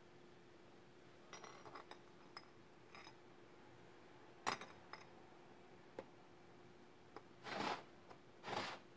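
Light metallic clicks and clinks of automatic-transmission clutch parts being handled and fitted into a clutch drum, with one sharper click about halfway through. Near the end come short scraping swishes about once a second.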